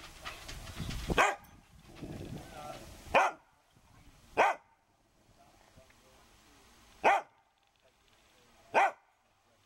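English springer spaniel barking for attention: five single sharp barks, spaced one to three seconds apart.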